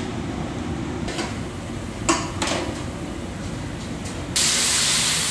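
Steady low hum with a few light clinks, then about four seconds in a loud sizzling hiss starts abruptly: dried small fish frying in hot oil.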